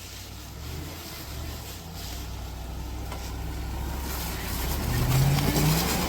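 Chevy Suburban's engine under throttle as it climbs a steep rutted dirt hill, growing steadily louder and loudest in the last second or so.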